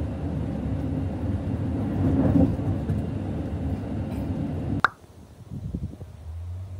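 Steady low rumble of a moving vehicle, which stops abruptly with a click about five seconds in. After that come quieter indoor sounds with a few soft knocks.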